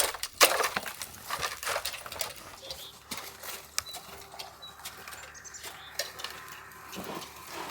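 Footsteps crunching in snow, a run of irregular crunches that thin out later.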